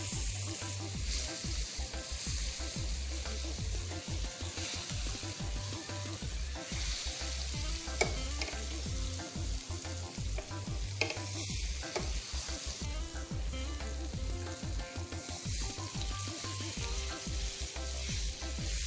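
Pork neck steak sizzling in hot oil in a ridged grill pan, a steady frying hiss. Two sharp clicks about eight and eleven seconds in.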